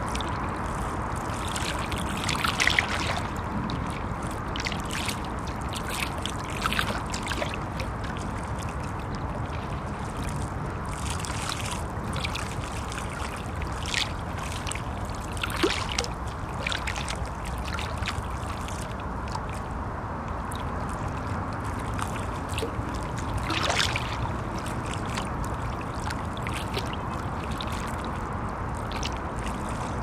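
Small river waves lapping and splashing against the shore in irregular slaps, a few of them louder, the loudest about three seconds in. Under it runs a steady low hum of heavy traffic crossing a bridge.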